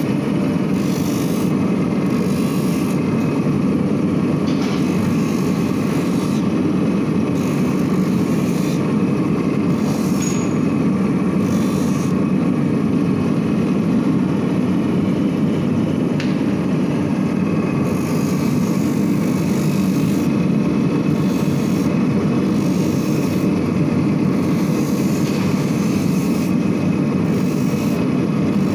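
Pegaso shoe roughing machine running: its motor and spinning abrasive wheel make a steady low drone, with a higher hiss that comes and goes as shoe pieces are pressed against the wheel.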